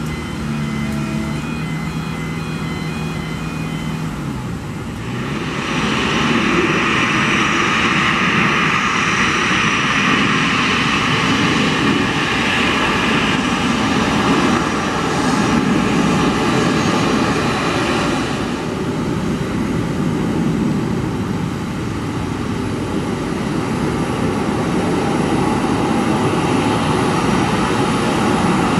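Boeing 737-400's CFM56 jet engines running at taxi power: a steady jet whine over a low rumble. It grows much louder about five seconds in as the airliner taxis by.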